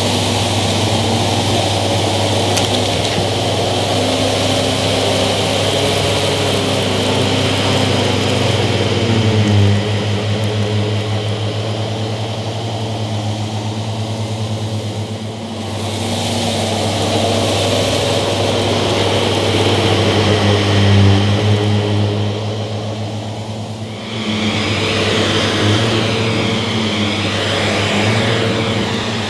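Miele S7 upright vacuum cleaner running steadily as it is pushed over carpet, its motor and brushroll picking up fluff and debris. Its tone shifts about halfway through and again near the end as it moves.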